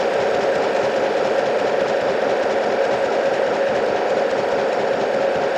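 Metal shaper running, its ram stroking back and forth as the tool takes a light finishing cut across the top of a metal block. Steady mechanical running with a constant hum.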